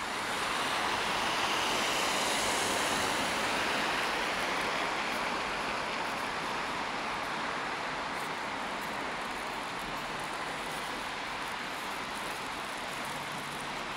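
Steady rushing noise of city road traffic, a little louder about two seconds in and then easing slightly.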